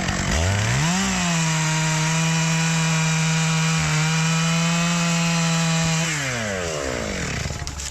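Stihl 661 two-stroke chainsaw revving up to full throttle and cutting steadily through wood for about five seconds, then dropping back off throttle: cutting the release strap of a bore-cut tree to set it falling.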